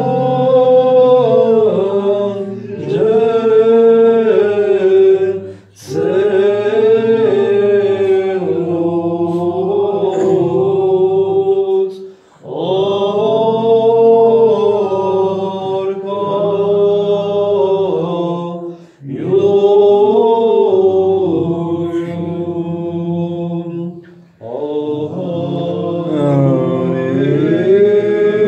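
Unaccompanied chanting, sung in long phrases of about six seconds with short breaks for breath between them, about five phrases in all.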